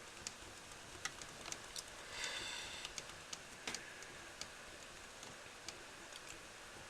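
Faint, irregular small clicks and one short scratchy rub about two seconds in, from a rubber eraser being worked over the oxidised contacts of a hard drive's controller board and the board being handled.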